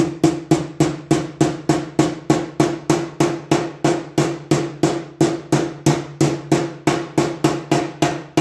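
A steel hammer taps a new steering-head bearing race into a Honda CT70 frame's steering head, driving the race down into its seat. The blows are steady and rapid, about four a second, and each one rings briefly with a metallic tone.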